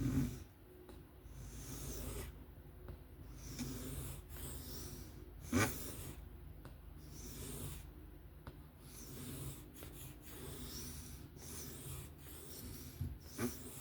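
Steel folding-knife blade in 154CM stroked back and forth across a whetstone by hand in freehand sharpening, a run of rasping strokes with short pauses between them. There is one sharp click about five and a half seconds in.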